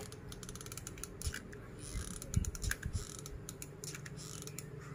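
Faint scattered clicks and creaks of plastic drinking straws being handled and pressed together while they are glued with a hot glue gun. A few soft knocks come about two and a half seconds in.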